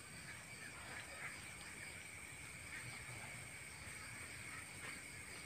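Faint night ambience: a steady, high, continuous insect chorus, with a few faint short chirps and ticks scattered through it.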